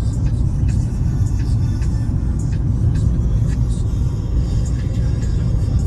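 Car driving on the road: a steady low rumble of engine and tyres.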